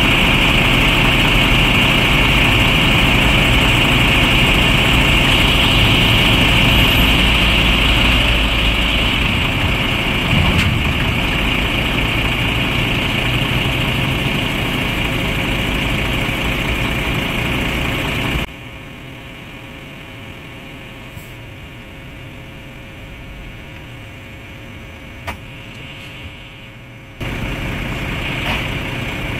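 Heavy trucks' diesel engines running steadily with a steady high whine over them. The sound drops suddenly to a lower level about two-thirds of the way through and comes back up near the end.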